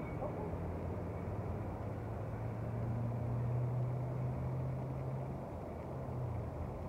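A steady low motor hum, like a vehicle engine running nearby, over a faint background hiss; the hum shifts slightly about five seconds in.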